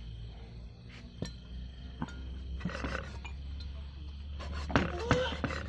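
A meat cleaver chopping grilled pork on a wooden chopping block: several irregular knocks a fraction of a second to a second or more apart, over a low steady hum.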